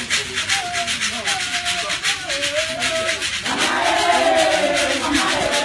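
Church choir music: a steady, fast rhythm of shaken rattles, with a single voice singing at first and the choir coming in louder a little past halfway.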